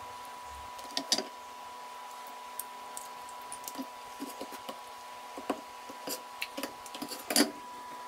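Scattered clicks, knocks and squishes of food preparation: seafood and utensils handled on a work surface. The loudest knocks come about a second in and near the end, over a steady hum with a faint high whine.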